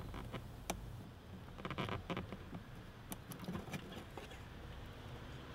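Faint scattered clicks and scratching of hands working plastic washer fluid hose connectors loose on a car's washer reservoir, with a brief flurry of rustling about two seconds in.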